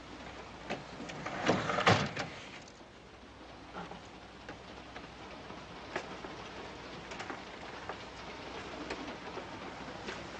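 A short flurry of knocks and rattles about a second and a half to two seconds in, then a steady hiss with a few scattered faint clicks.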